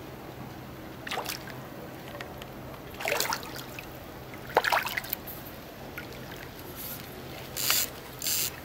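A hooked mullet splashing at the river surface as it is played in on a rod, a handful of short splashes spread over several seconds.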